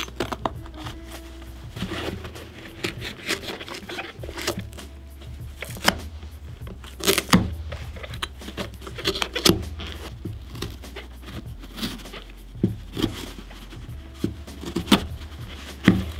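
A leather work boot being handled and worked with a hand tool on a wooden table: irregular knocks, clicks and scrapes, a few of them sharper and louder, over a steady low background.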